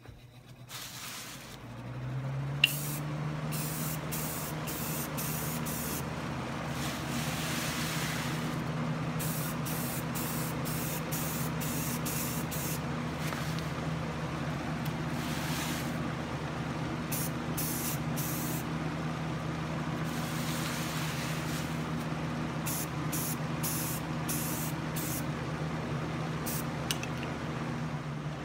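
Aerosol can of light gray enamel spraying in many short bursts of hiss, with a few longer passes, as a motor housing is painted. Under it runs a steady electric hum that comes up to speed in the first two seconds.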